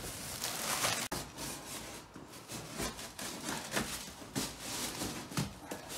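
Irregular rustling and scraping as a block of expanding packing foam in a plastic bag is worked out of a cardboard box, plastic and foam rubbing against the cardboard.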